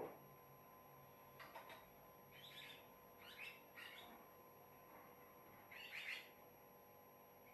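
Javan myna (jalak kebo) giving a few faint, short chirping calls, spaced irregularly over several seconds, after a single click right at the start.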